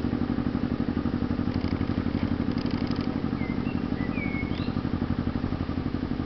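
Canal boat's diesel engine running steadily under way, with an even, rapid beat. A few short, high bird chirps come about three to four seconds in.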